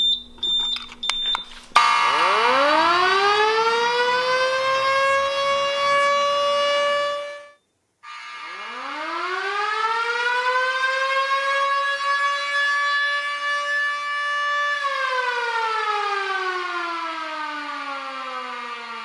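A few short high beeps, then an air raid siren winds up to a steady wail and cuts off suddenly about seven seconds in. It winds up again, holds its pitch, and winds down slowly over the last four seconds.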